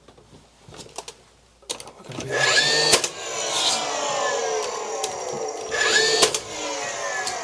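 DeWalt cordless pin gun (nail gun) firing two pins into a dado rail to hold it to the wall, about three seconds apart. Each shot is a sharp crack, with the tool's motor whirring around it and falling in pitch after each shot.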